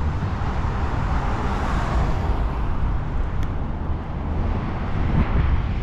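Steady road traffic noise with a low rumble, one vehicle growing louder as it passes about two seconds in.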